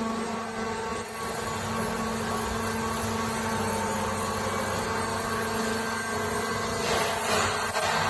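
Baling machine running with a steady mechanical hum of a few held tones over a noisy drone, growing louder and rougher near the end.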